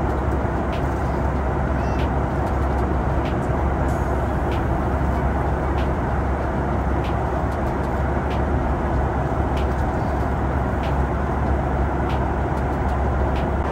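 Steady cabin noise inside a Boeing 737 MAX 8 airliner, a constant even rush heaviest in the lows, with a faint tick about every second and a quarter.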